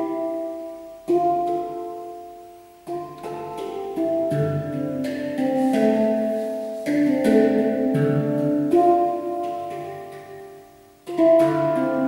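Handpan (steel hang drum) played with the hands: a melodic run of struck notes, each ringing on and fading, with two brief lulls where the ringing dies down.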